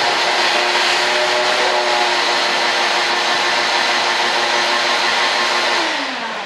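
A high-speed electric rotary cutting tool running steadily while it trims an edge, with a hissing, grinding cut over the motor's whine. Near the end it is switched off and its pitch falls as it spins down.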